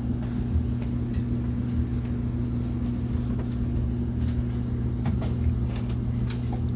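A steady low machine hum with a constant pitch, with a few faint scattered clicks over it.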